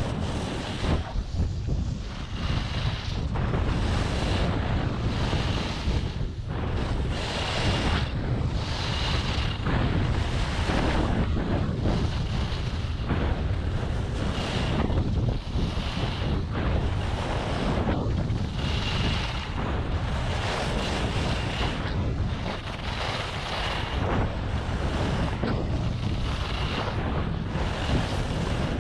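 Skis carving turns on groomed, hard-packed snow at speed: a swish of edges scraping the snow that swells every couple of seconds. Steady wind buffets the camera microphone underneath.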